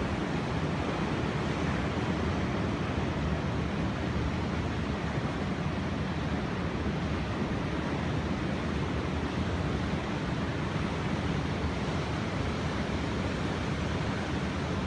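Rough sea surf stirred up by an approaching typhoon, a steady, even rush of breaking waves with wind on the microphone.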